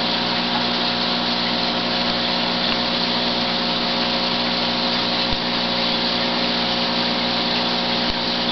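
Aquarium pump running: a steady electric hum with an even hiss of moving water.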